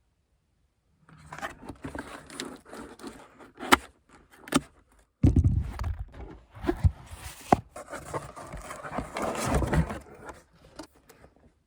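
Handling noises: irregular scraping and rustling of packaging being opened, with a few sharp clicks and some heavier low knocks in the middle.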